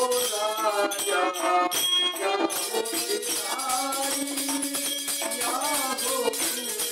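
Live Hindi devotional song (a mata ki bhent): a man singing over a harmonium's held reed chords, with a dholak drum and jingling hand cymbals keeping the beat.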